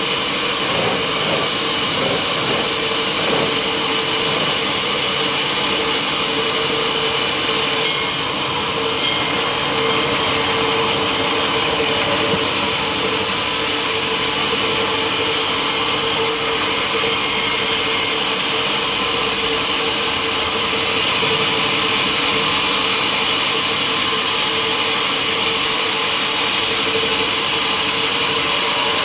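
Sawmill saw cutting steadily through a log: a continuous loud sawing noise with a steady tone running through it.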